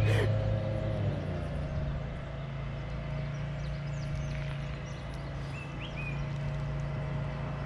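A steady low engine-like hum runs throughout, a little louder in the first second. A few short bird chirps come about two-thirds of the way in.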